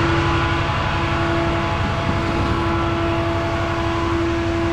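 Flatbed tow truck running steadily while its bed unloads the car: an even engine hum with a constant high whine over it.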